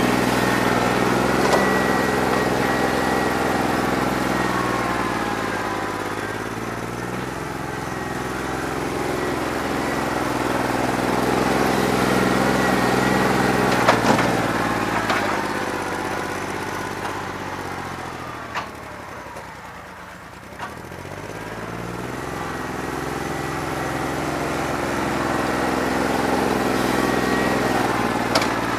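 New Holland 1320 tractor's diesel engine running with a bad injector. The engine slows and picks up again, dipping lowest and quietest about twenty seconds in, with a few sharp clicks.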